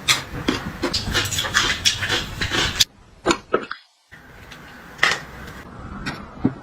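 Hard objects being handled: a quick run of clicks, knocks and scraping, broken by a brief dropout to silence a little under four seconds in, after which sparser clicks follow.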